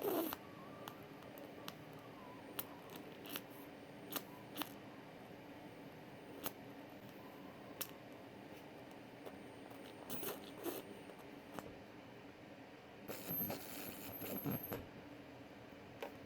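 Scattered light clicks and taps with some scraping, as of things being handled by hand. A short, noisier scraping stretch comes about thirteen seconds in.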